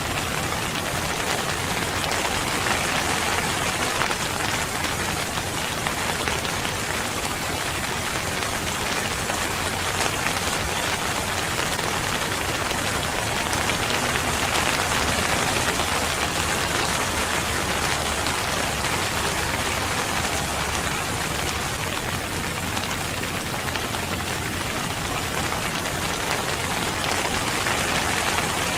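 Steady rain falling on surfaces, a dense, even patter that swells and eases slightly.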